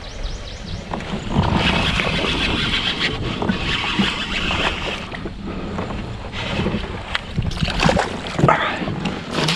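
Wind buffeting the microphone over water sloshing and splashing around a kayak, with a few short splashes or knocks in the last two seconds.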